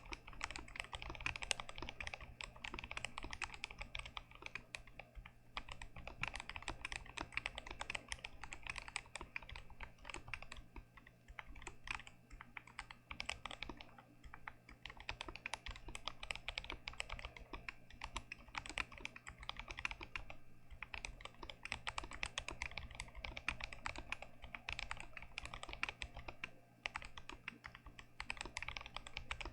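Continuous fast typing on a GMMK Pro mechanical keyboard with Gazzew Boba U4T tactile switches, a dense stream of keystrokes with brief pauses around halfway and near the end.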